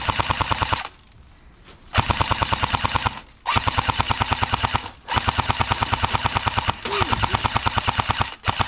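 Airsoft light machine gun firing on full auto in long rapid bursts: a burst at the start, a pause of about a second, then four or five more long bursts separated by short breaks.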